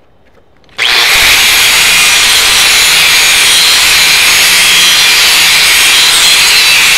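DeWalt angle grinder's disc grinding against a steel plate, starting abruptly about a second in and running steadily and loud, as it takes the mill scale off the plate.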